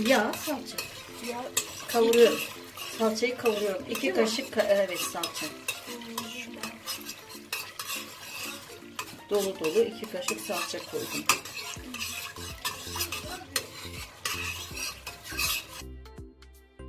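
A metal spoon stirs and scrapes red paste (salça) around in hot sizzling oil in a stainless steel pot, clinking repeatedly against the pot. Background music comes in near the end.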